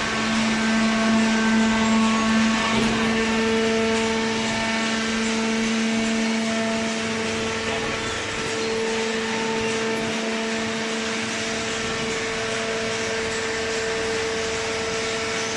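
Hydraulic carton baler's electric motor and pump running steadily: a constant hum with a higher whine that grows stronger about three seconds in.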